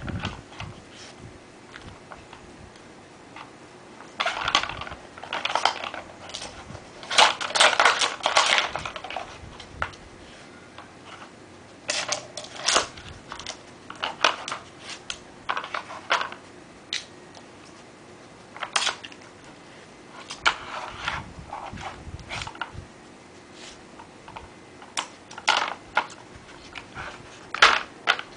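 Plastic Nina Ottosson Tornado dog puzzle toy clicking and clattering as a dog turns and knocks its stacked discs and blocks, in irregular bursts with short pauses between.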